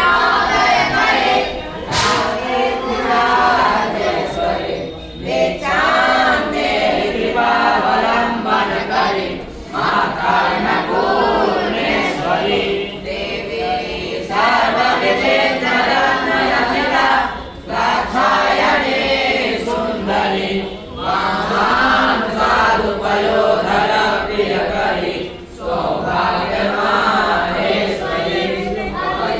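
A group of voices chanting a Sanskrit hymn in unison, in rising and falling phrases of a few seconds, each followed by a brief pause for breath.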